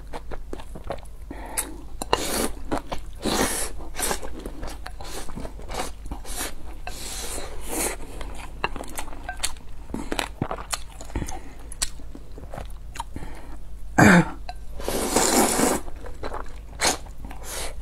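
Close-miked eating sounds: a person slurping and chewing thick noodles in many short, wet bursts. A sudden loud sound comes about fourteen seconds in, followed by a longer, louder slurp.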